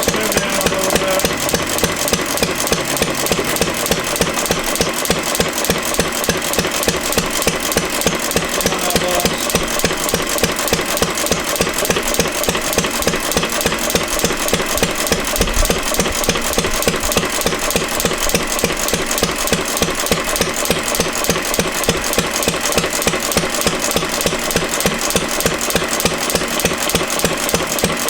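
1 hp IHC Mogul single-cylinder antique gas engine running steadily with an even, rapid firing beat. It is running faster than wanted: its throttle governor can't be adjusted to hold the set speed.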